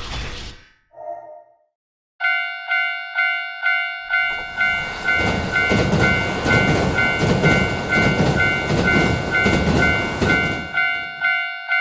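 Japanese railroad crossing warning bell ringing its repeated "kan kan" strokes, a little under two a second, starting about two seconds in. From about four seconds in a train runs past through the crossing for about seven seconds, then the bell carries on alone.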